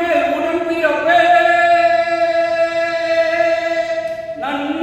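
A man singing, a short phrase and then one long held note of about three seconds.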